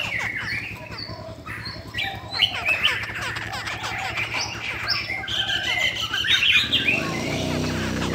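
Caged Chinese hwamei (laughingthrushes) calling and singing in quick, varied chirps and whistled notes.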